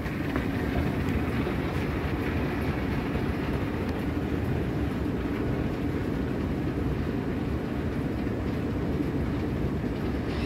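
Escalator running while being ridden upward: a steady low rumble and hum from its moving steps and drive, holding an even level throughout.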